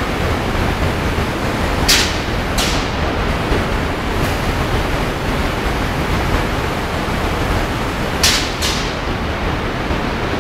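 Airless paint spraying: a loud, steady rushing hiss with a low rumble underneath. Two pairs of short, sharper hisses come about two seconds in and again about eight seconds in.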